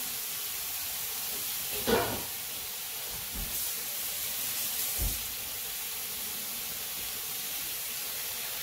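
Freshly added seasoned chicken pieces sizzling steadily in a hot pot, with a brief knock about two seconds in.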